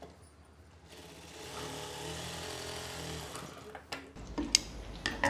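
Industrial sewing machine running and stitching a seam along an invisible zip. It starts about a second in, runs steadily for about two and a half seconds and stops. A few clicks and fabric handling follow as the work is pulled from under the presser foot.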